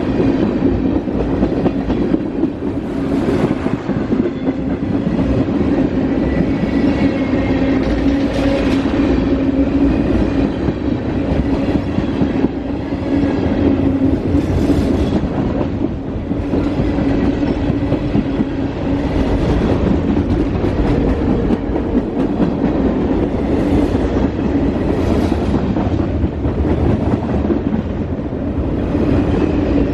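A long freight train of tank cars, boxcars and autoracks rolling past close by: a steady rumble of steel wheels on rail, with clickety-clack at the rail joints and brief louder clacks every few seconds.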